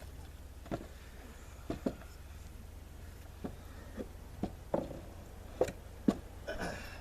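A series of irregular light knocks and clunks, about ten of them, from parts being handled and fitted by hand, with a short rattle near the end, over a low steady hum.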